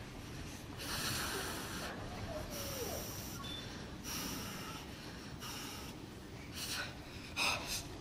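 A man breathing forcefully in a series of about six sharp, hissing breaths as he readies himself for a breaking strike on a stack of ice blocks. The last breath, near the end, is the loudest.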